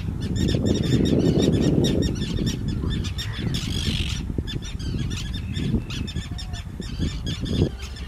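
A common tern colony calling: many short, harsh tern calls overlapping in a continuous chorus. A low rumble sits under them for the first two seconds or so.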